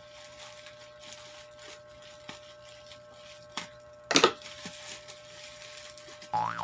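Black plastic mailing pouch crinkling and rustling as it is handled and opened, with small crackles throughout and one louder sharp crackle about four seconds in.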